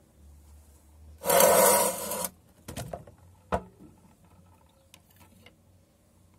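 Handling of a metal angle grinder stand: one loud rubbing scrape lasting about a second, then a few light clicks and a single sharp knock, with faint ticks near the end.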